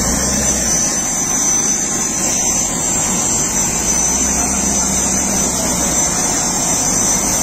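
Airliner's turbine still running, a steady loud rushing noise with a high-pitched whine over a low hum, with faint voices underneath.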